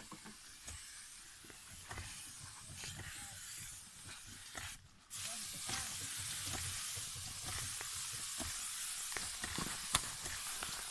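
Backpack sprayer's wand nozzle hissing as it sprays pesticide mist over coffee bushes. The spray stops for a moment about five seconds in, then resumes as a louder, steady hiss.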